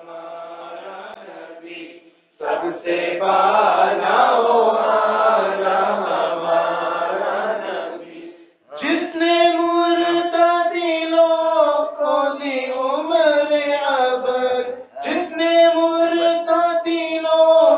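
A group of male voices chants an Urdu naat together without instruments, line by line. There are short breaths between the lines about two and eight seconds in.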